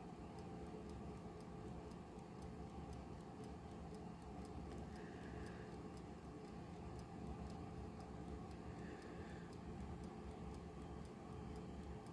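Exposed clockwork movement of a 1940s wind-up alarm clock, out of its case, ticking steadily and rapidly as its balance wheel and escapement run. The ticks are faint.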